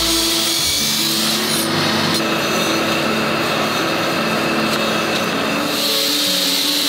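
Coal forge fire burning, a steady rushing noise as the tangs of a bundle of hoe blades heat in the coals.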